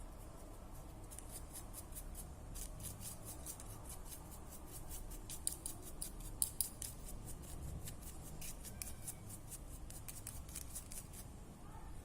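A rapid run of light, crisp clicks or snips, several a second, with a few louder ones about halfway through.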